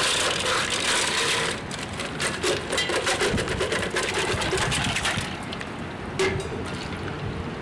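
Ice cubes tipped from a bowl into a steel pail, clattering against the metal and each other. A rushing hiss in the first second or so gives way to a few seconds of rapid clinks, and a couple of single clinks come near the end.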